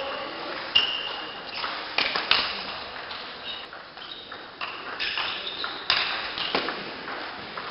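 Table tennis ball clicking off rubber-faced bats and the table as sharp, irregularly spaced ticks, with a short ring after each in a large hall.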